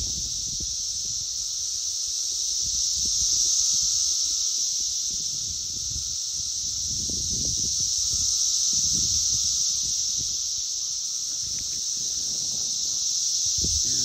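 Chorus of periodical cicadas: a dense, steady high-pitched drone that swells and eases every few seconds. Intermittent low rumbles on the microphone sit beneath it.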